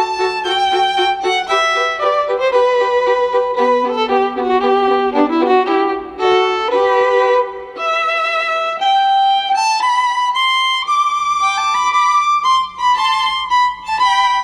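Instrumental background music: a violin playing a quick, continuous melody.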